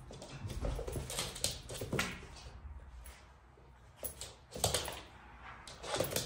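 Basenji puppy's paws and claws scuffling and tapping on a laminate floor and a disposable puppy pad as it jumps and pounces at a rubber ball, in irregular spells, loudest about four and a half seconds in and near the end.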